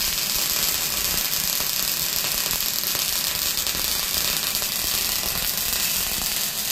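MIG welder arc crackling and sizzling steadily as a continuous bead is laid on steel, spitting spatter.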